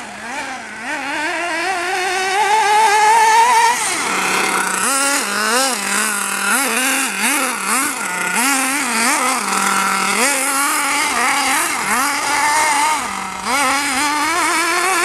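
Hobao Hyper 8.5 nitro RC buggy's two-stroke glow engine revving hard: one long climb in pitch over the first four seconds, then a run of quick throttle blips rising and falling, dropping back to a steady idle between them.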